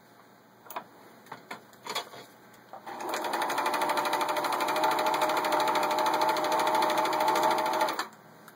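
Pfaff 297-1 sewing machine stitching one of its built-in patterns, a fast even run of needle strokes for about five seconds that stops suddenly. Before it starts there are a few light clicks and knocks.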